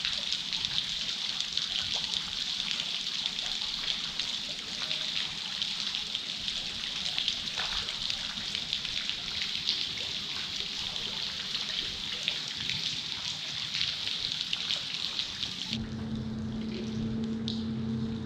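Steady rain falling, a dense hiss of many small drops hitting the water and the boat. About 16 s in the rain sound fades back and a steady low motor hum takes over.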